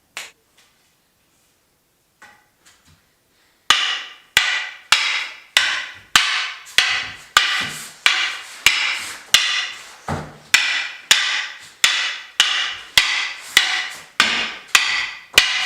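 Martial-arts canes clacking against each other in a steady strike drill, about one and a half hard hits a second, each with a short ring. The hits start a little under four seconds in, after a few near-quiet seconds.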